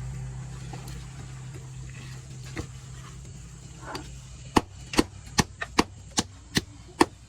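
A blade chopping through a large catla carp: a couple of light knocks, then eight sharp chopping strikes in quick succession from a little past halfway, about three a second, over a low hum that fades.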